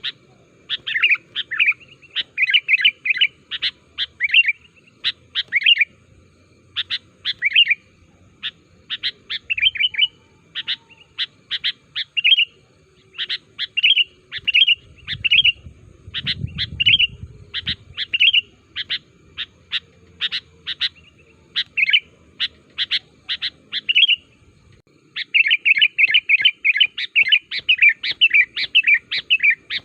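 Sooty-headed bulbul calling: a steady stream of short, sharp chirping notes in quick groups, which breaks into a fast, dense run of notes near the end.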